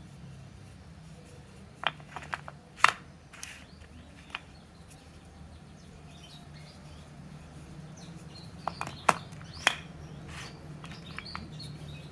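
Short, sharp clicks and taps in two brief clusters, about two seconds in and again near nine seconds in, over a steady low hum.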